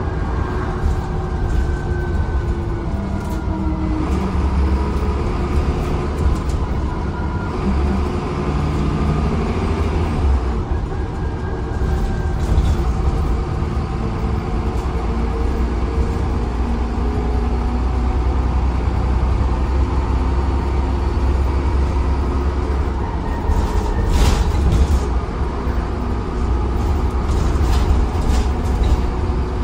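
Transbus Trident double-decker bus on the move, heard from the upper deck: a deep steady rumble from the diesel engine and drivetrain, with engine and gearbox tones that rise and fall with speed. A brief burst of rattling comes about three-quarters of the way through.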